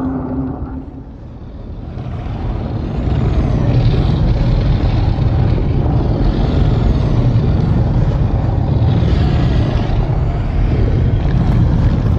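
Deep, dense rumble from a designed giant-kraken sound effect. It builds up over the first few seconds, then holds steady, with faint hissing swells recurring every few seconds.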